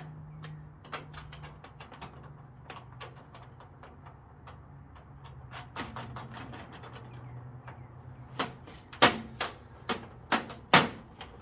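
Light metallic clicks and taps of a wrench working a nut and bolt in the corner of a sheet-metal tool chest, then a run of louder, sharper clanks in the last few seconds. A low steady hum sits underneath.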